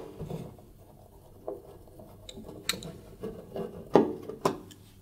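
Phillips screwdriver turning out a screw from a tumble dryer's sheet-metal back panel: small scrapes and clicks of the bit in the screw head, with two sharper metallic knocks about four seconds in.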